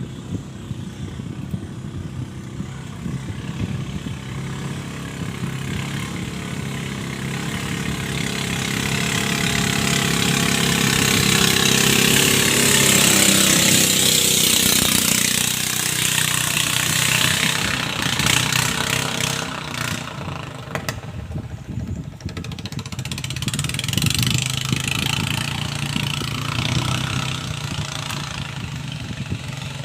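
Small engine running on massage oil as fuel, speeding up to a peak a little under halfway through and slowing back down. It then weakens briefly with a few sharp crackles before picking up again.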